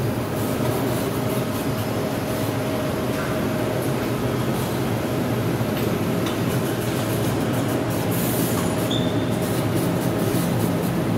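Steady hum and rumble of factory machinery and ventilation, with a faint constant whine above it and a couple of small clicks.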